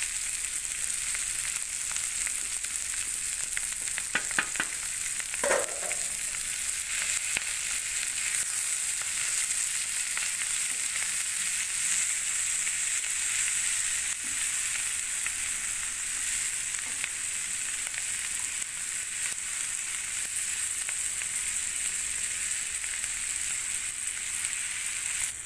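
Noodles and shredded vegetables sizzling in hot oil in a frying pan, stir-fried with a wooden spatula in a steady hiss. A few clicks of the spatula against the pan come about four to six seconds in.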